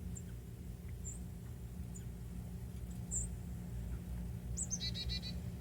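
Outdoor birds calling: a few short high chirps, then near the end a quick falling note and a rapid run of about five notes. Under them, a steady low rumble of sleet hitting the ground and leaves.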